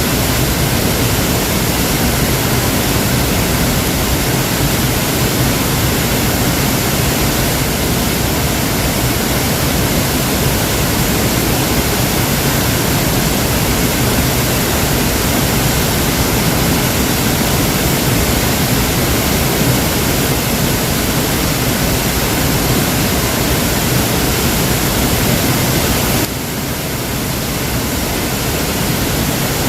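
Waterfall: a steady, loud rush of falling water, dropping slightly in level near the end.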